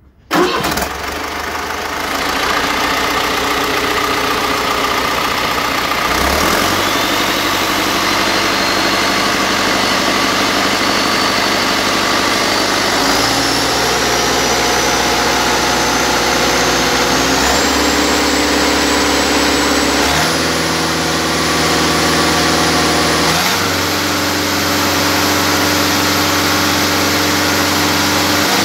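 Deutz BF4L913 air-cooled, turbocharged four-cylinder diesel starting and then running. Its speed changes in several distinct steps, and a high whistle climbs as it goes.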